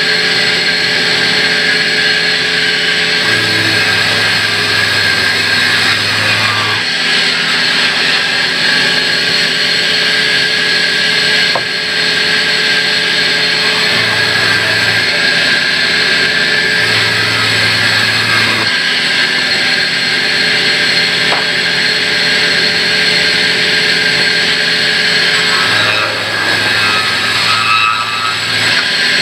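Sawmill band saw running and sawing lengthwise through a log: a loud, steady machine drone with a hiss of cutting. A deeper hum comes in and drops out four times.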